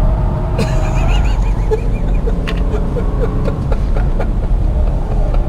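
A car driven hard on a race circuit, heard from inside the cabin: loud, steady engine and road noise. A run of short, high chirps and clicks comes over it in the first few seconds.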